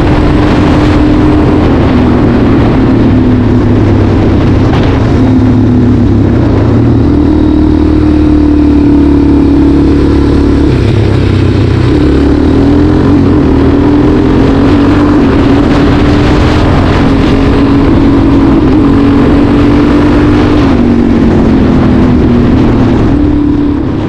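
Suzuki DRZ400SM's single-cylinder four-stroke engine running on the road, its pitch rising and dropping with throttle and gear changes.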